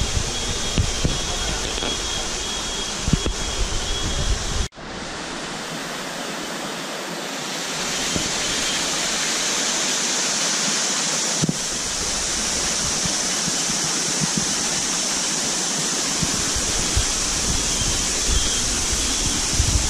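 Waterfall: a steady rush of falling water. Wind buffets the microphone in gusts at the start and again near the end, and the sound breaks off abruptly about five seconds in before picking up again.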